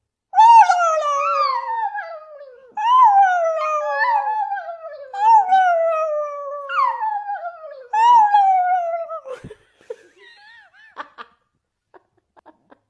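Chihuahua howling: about five long howls in a row, each starting high and sliding down in pitch, ending about nine and a half seconds in.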